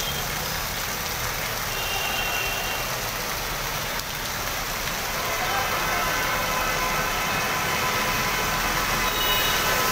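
Steady hiss of rain and floodwater running over a flooded road, with traffic mixed in. A few short high beeps sound about two seconds in and again near the end.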